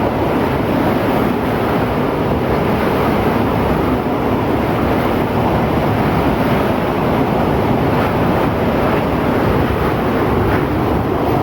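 Strong storm wind blowing hard, a steady loud rush buffeting the phone's microphone.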